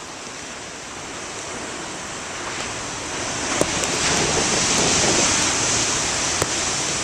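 Ocean surf: a wave breaks and washes in, the rushing growing about three seconds in, at its fullest a second or so later, then easing toward the end.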